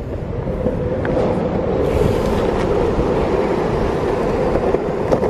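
Longboard wheels rolling fast over asphalt: a steady rumble that builds over the first couple of seconds, with wind noise on the microphone.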